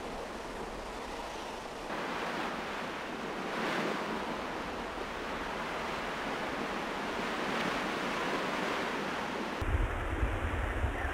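Wind rushing as a steady hiss, buffeting the microphone with a low rumble and brief thumps from about ten seconds in.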